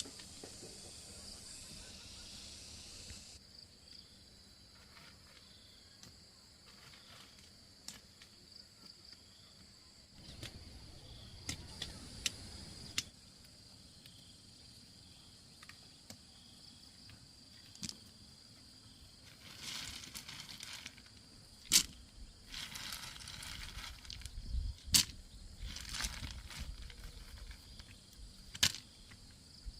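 A steady high-pitched drone of insects, typical of crickets, under scattered sharp knocks and two stretches of rustling and handling noise, with the loudest knocks in the second half.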